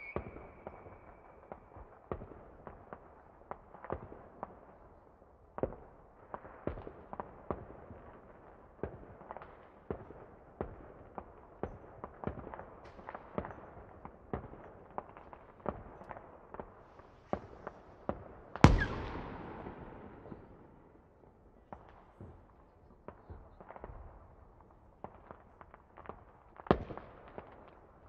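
Fireworks going off: an irregular run of pops and bangs, with one much louder boom about two-thirds of the way through that rings out for a second or two.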